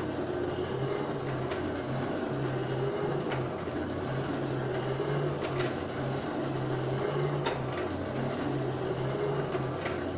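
Coal forge's blower running steadily with a low, slightly wavering hum, feeding air to the fire while a steel pipe heats in it. A few faint clicks sound over it.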